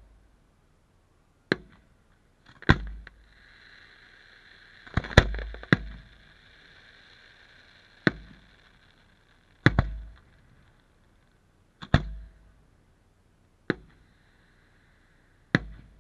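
Aerial fireworks shells bursting overhead: about ten sharp bangs, one every second or two, some in quick pairs, each with a brief low rumble, and a faint hiss between some of the bursts.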